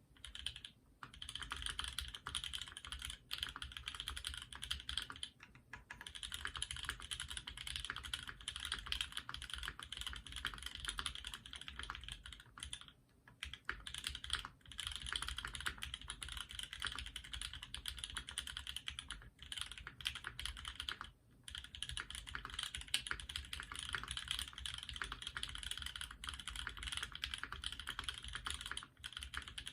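Fast, continuous typing on a 65% custom mechanical keyboard (Maker Keyboards Phantom) with lubed and filmed Banana Split linear switches, an aluminum plate and GMK keycaps, broken by a few short pauses.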